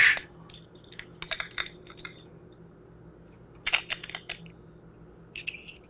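Light metal clicks and clinks of a crescent wrench being fitted onto the valve retaining screw of a Nelspot 007 paintball marker's valve body, coming in several short clusters.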